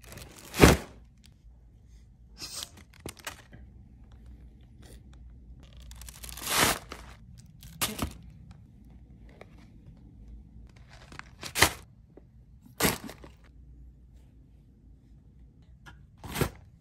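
Objects dropped one after another into paper gift bags filled with tissue paper, each landing with a crunch and rustle of paper; about eight separate drops.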